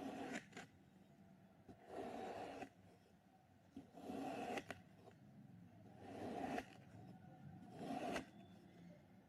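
Kinetic sand being sliced with a blade: five soft gritty scrapes about two seconds apart, each under a second long, a couple ending in a light tap.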